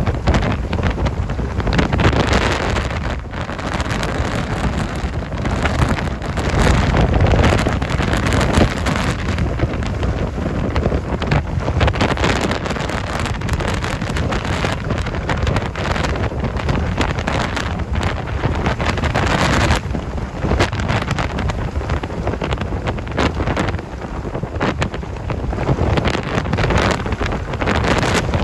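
Tropical-storm wind, sustained around 55–60 mph and gusting to about 70 mph, buffeting the microphone in a loud, heavy rumble that swells and eases with each gust. Heavy surf breaks on the beach underneath.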